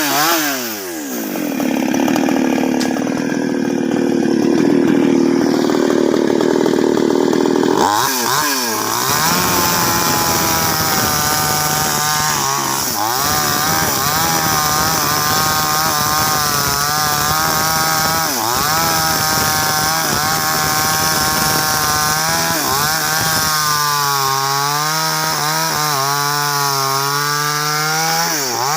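Two-stroke chainsaw running hard and cutting through sengon wood, its engine note wavering under load. It revs up and down at the start and again about eight seconds in before settling into a long, steady cut.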